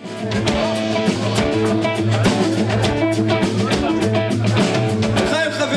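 Live country-rock band playing: electric guitars and a drum kit over a steady bass line. The music fades in right at the start.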